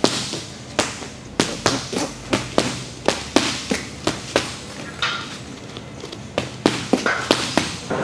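Gloved boxing punches landing in quick combinations: about two dozen sharp smacks in uneven clusters, with a short lull just past the middle.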